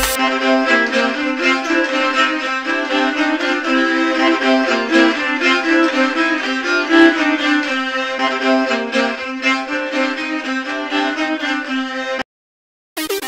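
Background music with a string melody that cuts off suddenly near the end, then after a short silence a different piece starts.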